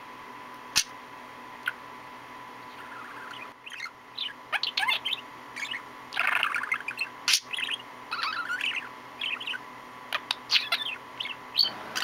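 Budgerigar chattering: a quick run of short chirps, squeaks and warbles that starts about three and a half seconds in and keeps going, with two sharp clicks before it.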